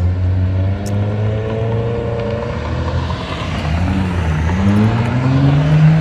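Car engine running at a low, steady pitch, then climbing in pitch over the last two seconds as it speeds up.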